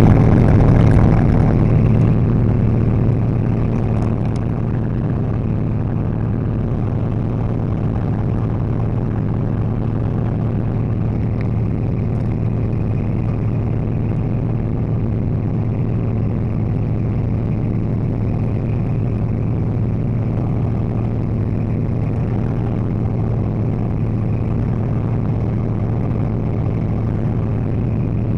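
Yamaha snowmobile engine running steadily under way, a constant drone. It is slightly louder for the first few seconds, then holds an even pitch and level.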